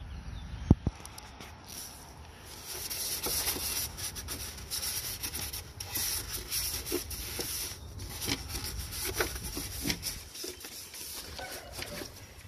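A cloth rag rubbed and scrubbed around the inside of a plastic air filter housing by a gloved hand, in quick irregular strokes. A single sharp knock sounds about a second in.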